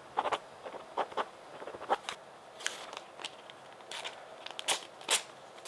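Quiet, scattered rustling with about a dozen small clicks, of something being handled by hand.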